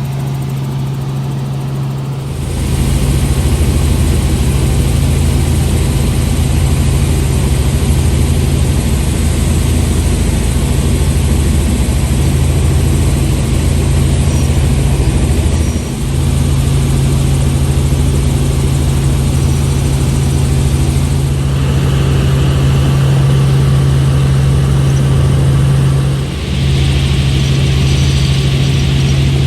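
Helicopter running in flight: a steady low drone with a constant hum under a wash of noise. It grows louder about two seconds in and dips for a moment twice later on.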